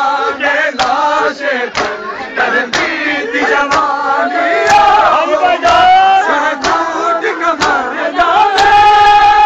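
Men's voices chanting a nauha, a Shia lament, in unison. In time with it come sharp slaps of chest-beating (matam), about one a second. Near the end the voices hold one long note.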